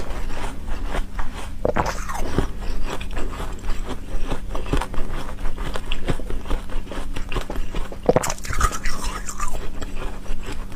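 Frozen water being bitten and chewed: dense crackling ice crunches throughout, with heavier bites about two seconds in and about eight seconds in.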